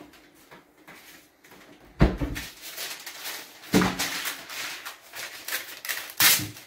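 Kitchen handling knocks: a heavy thump about two seconds in, a smaller knock just before four seconds and a sharp clack near the end, like a cupboard or drawer and kitchenware being moved.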